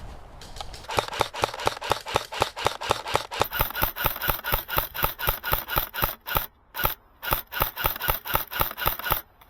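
Airsoft rifle firing a rapid string of shots, about five or six a second, with two brief breaks near the middle and end.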